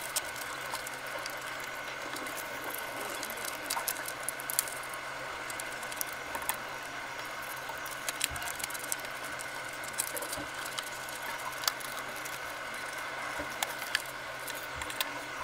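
Scissors cutting black chart paper: irregular small snips and crisp paper clicks over a steady background hiss with a faint high hum.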